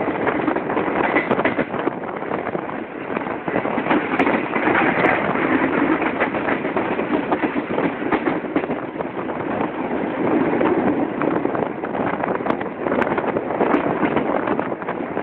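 Tezgam passenger coach running at speed, heard from its open doorway: a steady rumble with a dense, rapid clatter of steel wheels over the rails and the junction's points.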